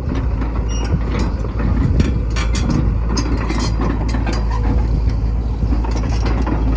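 JCB JS130 tracked excavator's diesel engine running with a steady low rumble, with irregular clanks and rattles from the machine as it moves, thickest in the first few seconds.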